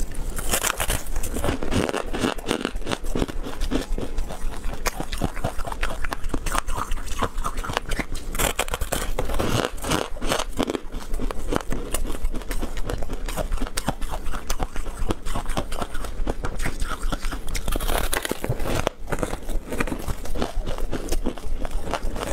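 Biting into and chewing a crispy fried, crumb-coated snack: a dense, unbroken run of crackly crunches.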